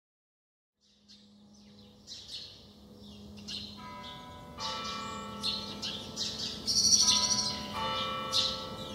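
Orthodox church bells ringing, several bells struck in turn with their tones overlapping and ringing on, over birds chirping. The sound fades in from silence about a second in and grows louder.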